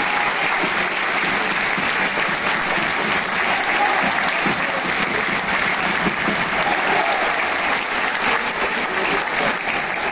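Large football stadium crowd applauding steadily, with many voices mixed in.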